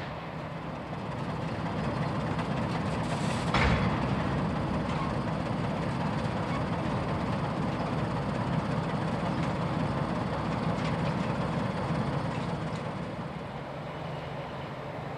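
Freight train of covered hopper wagons passing with a diesel locomotive: a steady rumble of wheels on the rails, with one sharp knock about three and a half seconds in. The rumble falls away near the end.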